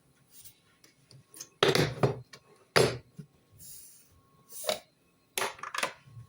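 Kitchen dishes and a food container being handled, with several separate knocks and clinks; the loudest come a little under two seconds in and just before three seconds.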